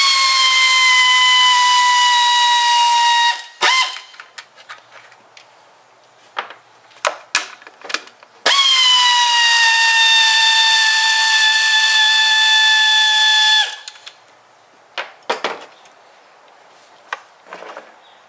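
Air ratchet spinning off the two 10 mm nuts that hold the engine's plastic top cover: a high whine over hissing air, in two runs of about four and five seconds, the pitch dropping at the start of each run and then holding steady. In between and near the end, light clicks and clinks of the tool and the loosened nuts being handled.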